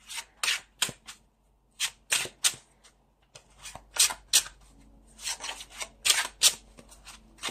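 A deck of tarot cards shuffled by hand: a quick, irregular run of short papery swishes as the cards slide past each other, in small clusters with brief gaps.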